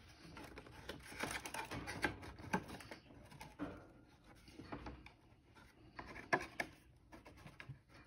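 Faint rustling and scattered light clicks from hands working a cardboard box inside a wire bird cage, livelier in the first few seconds and again around six seconds in.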